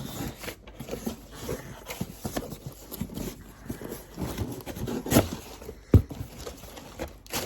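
A cardboard shipping box being opened by hand: irregular scrapes, rustles and knocks, with a sharp knock about six seconds in.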